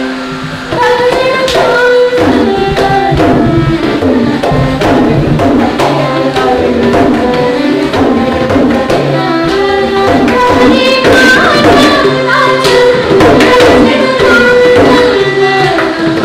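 Odissi classical music in raga Hamsadhwani: rapid mardala drumming under a violin melody with singing, the melodic lines sliding and ornamented.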